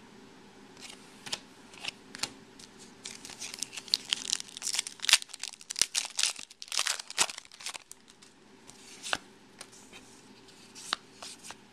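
Foil wrapper of a Topps Chrome baseball card pack being torn open and crinkled, a dense run of crackles in the middle, followed by sparser ticks as the cards are slid out and handled.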